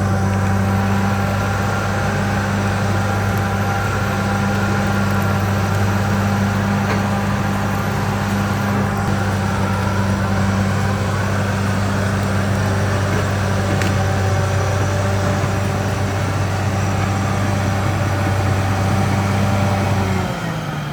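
CAT D6R XL bulldozer's diesel engine running at a steady, even pitch, its speed dropping near the end.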